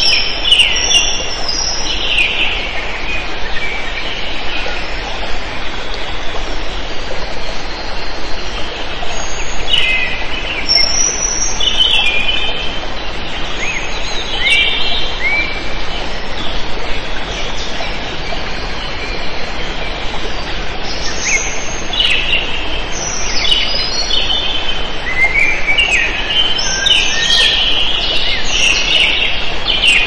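Songbirds chirping and trilling in short bursts over a steady background hiss, the calls growing busier and overlapping in the last few seconds.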